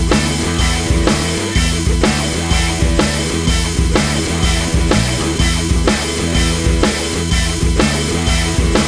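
Rock music with a driving drum beat of about two strikes a second over a heavy bass line.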